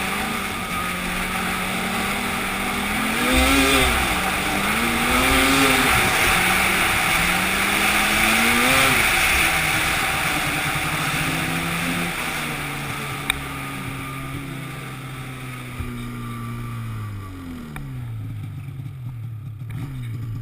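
A vehicle engine revving up and easing off several times, with a rushing hiss that is loudest in the middle, then running lower and dropping in pitch near the end.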